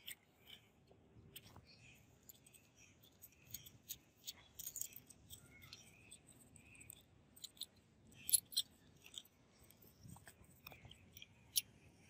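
Faint scattered metal clicks and scrapes of a screwdriver turning out a grip screw and a brass grip panel being worked off a revolver's steel frame, with a few sharper clicks.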